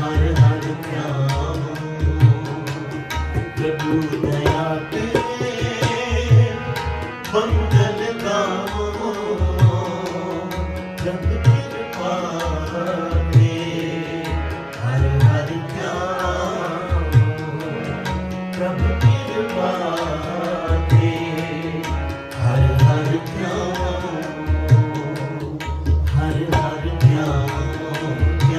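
Sikh kirtan music: tabla drumming in a steady rhythm under a wavering sung melody, with a steady drone.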